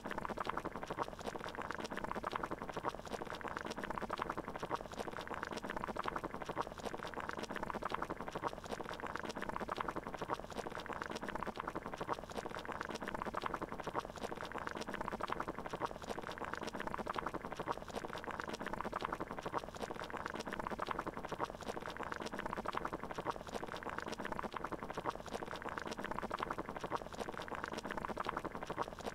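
Water boiling: a steady, dense bubbling that holds at an even level throughout.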